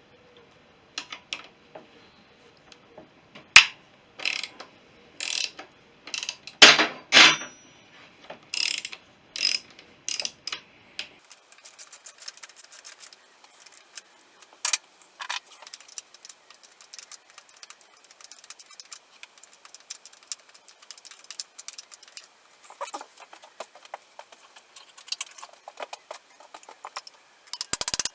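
Hand socket ratchet clicking while fasteners are worked loose on a motorcycle engine: a few sharp metal knocks over the first dozen seconds, then long runs of fast, fine clicking, and a cluster of loud clacks near the end.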